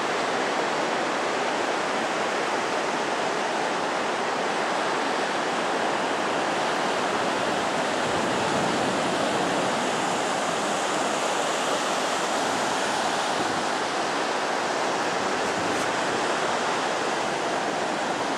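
Atlantic Ocean surf breaking and washing up a sandy beach: a steady rushing noise with no single crash standing out.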